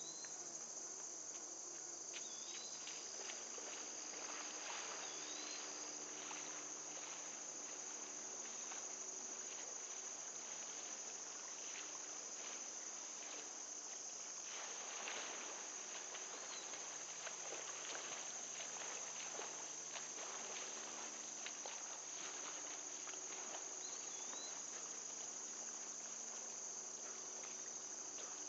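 A steady, high-pitched insect chorus, with faint irregular pattering and a few short rising chirps now and then.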